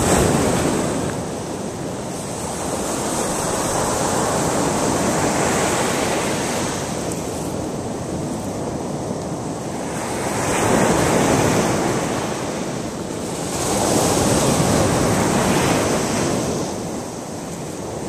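Surf washing onto a sandy beach, its rush swelling and fading every few seconds, with wind on the microphone.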